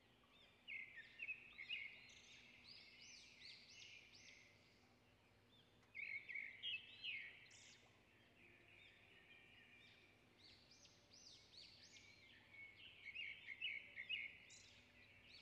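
Faint bird chirping, in three short bursts of quick chirps, over otherwise near silence.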